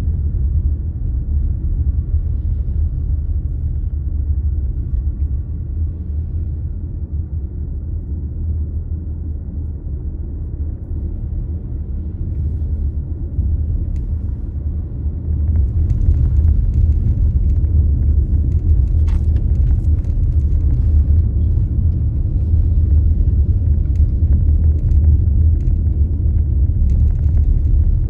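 Steady low rumble of a car on the move, engine and road noise, getting somewhat louder a little over halfway through, with a few faint clicks.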